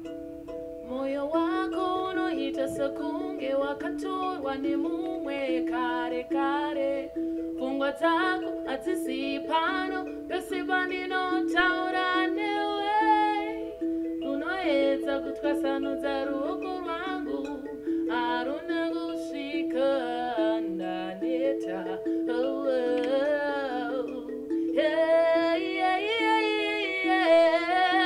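A woman singing a solo melody in a high voice over a repeating accompaniment of short pitched instrumental notes.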